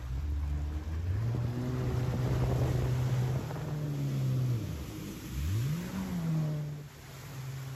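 Jet ski engine running under throttle, its pitch stepping up about a second in, then dropping away almost to idle a little past the middle before revving back up with a quick rising whine and settling at a steady speed. Water rushes and sprays under the hull throughout.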